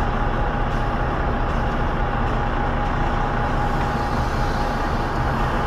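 Steady idling rumble of a semi truck's diesel engine heard from inside the parked cab, with a faint steady whine over it.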